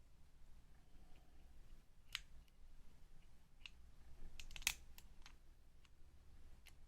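Faint, scattered metallic clicks of a lock pick working the pins one at a time in a Master Lock deadbolt during single-pin picking, with a small cluster of clicks a little past the middle, the loudest of them there.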